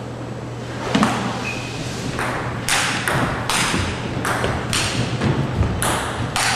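Table tennis ball being hit back and forth in a long-range rally: a sharp ping about a second in, then a quick run of pings, taps and shoe scuffs, two or three a second, as the players hit and run for the ball.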